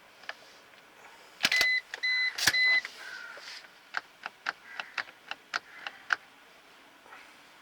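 Inside a Maruti Suzuki car: a couple of knocks with two or three short, high electronic beeps from the car, about a second and a half in. Then a run of small, sharp plastic switch clicks, a few a second, as the alarm button is pressed repeatedly to arm the factory anti-theft alarm.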